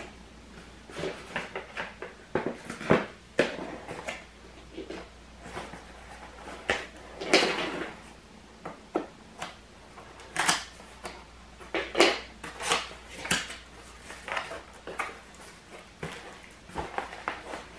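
Cardboard box being handled and opened: irregular knocks, taps and scrapes of the cardboard as the long box is moved about and its end flap pulled open.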